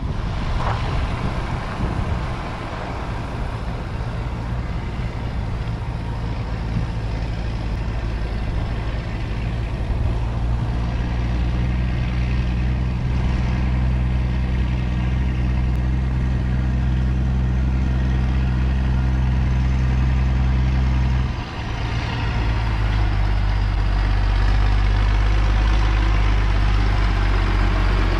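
Ursus 1604 tractor's diesel engine running under load as it pulls a loaded trailer and approaches, growing steadily louder. About three quarters of the way through the engine note dips briefly, then carries on at a slightly lower pitch.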